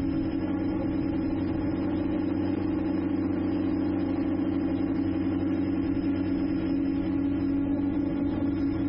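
Drone motors and propellers humming steadily in flight, an even whirr with a constant pitch that neither rises nor falls.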